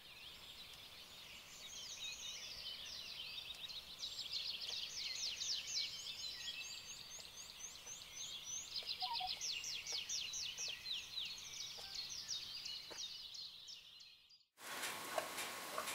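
Songbirds chirping and trilling, with many quick high chirps and fast trilled runs overlapping one another. The birdsong stops abruptly about a second before the end, and ordinary room sound comes back.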